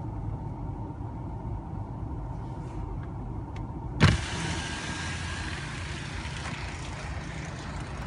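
Wind buffeting a phone's microphone in a snowstorm: a steady low rumble. About four seconds in there is a loud bump, after which a brighter hiss of wind joins the rumble.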